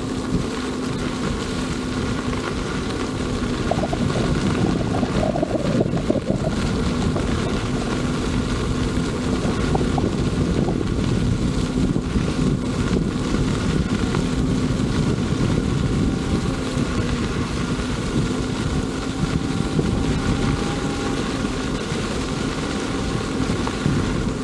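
Wind buffeting the microphone on a moving electric unicycle, with a steady whine from the Veteran Sherman S's hub motor running underneath.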